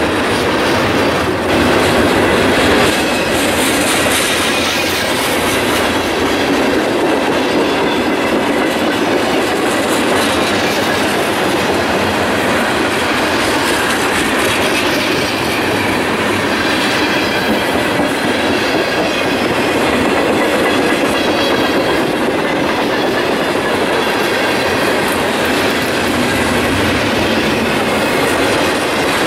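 Freight cars of a mixed freight train (gondolas, tank cars and boxcars) rolling steadily past close by, steel wheels running on the rails with a continuous, even rolling noise.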